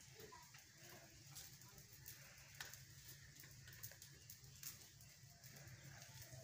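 Near silence: faint room tone with a low hum and scattered faint clicks.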